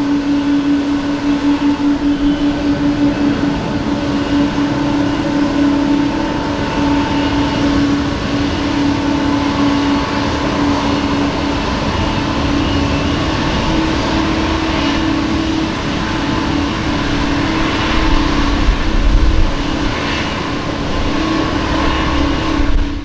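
Boeing 767-300 airliner's twin jet engines at takeoff power as it climbs away, a loud steady rush with a steady droning tone through it. Some low rumbling comes in near the end before the sound cuts off.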